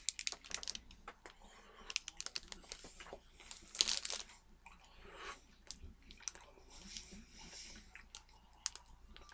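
Close-up chewing of a chewy peanut butter crunch protein bar: small wet mouth clicks and crunches, with a louder rustling burst about four seconds in.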